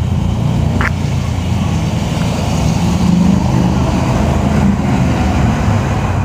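Helicopter approaching overhead, heard as a steady low drone of rotor and engine.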